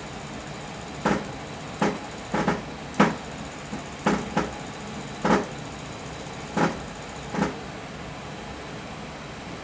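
Bench-test servo and stepper motors of a CNC setup making short, quick moves: about nine or ten brief bursts, irregularly spaced, over a steady hum.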